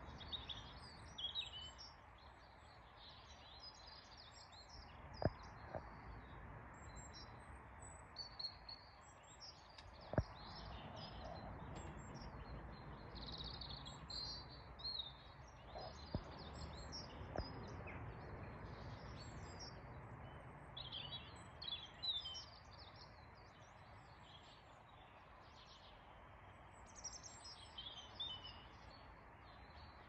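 Garden songbirds chirping and singing continuously in many short, high phrases, with a few sharp clicks between them.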